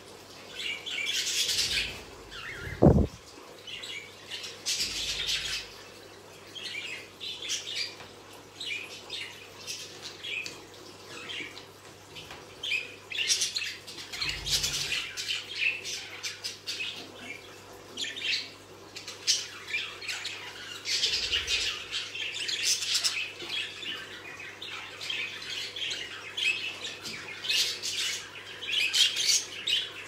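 Budgerigars chirping and chattering in short, high-pitched calls that come again and again, with a sharp thump about three seconds in.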